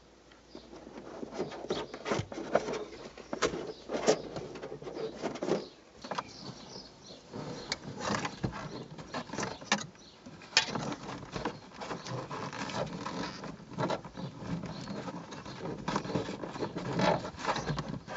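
A dashcam power cable being tucked by hand into the headliner seam above the windscreen: irregular rustling and scraping with many small clicks and taps as the headliner edge is pulled down and the cable pushed in.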